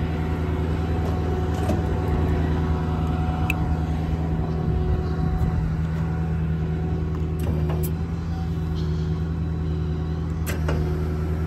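Ford 6.4 Power Stroke V8 diesel running steadily at idle with the PTO engaged to drive the crane hydraulics, with a few faint clicks.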